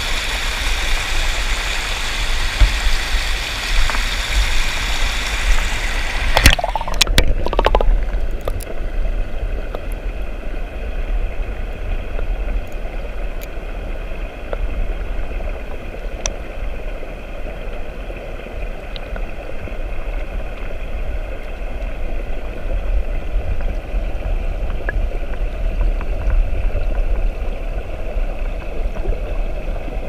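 Mountain stream rushing over rocks, loud for the first few seconds, then softer after a few knocks about seven seconds in, with a low rumble underneath throughout.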